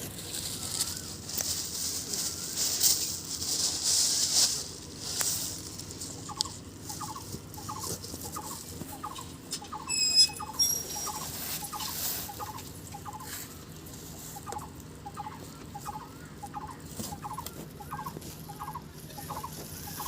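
A bird-like call repeated about twice a second as short rising chirps, starting about six seconds in, after a hissing noise in the first few seconds.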